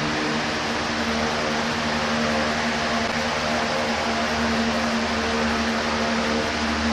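Electric fans or blowers running steadily: an even rushing whir with a constant low hum underneath.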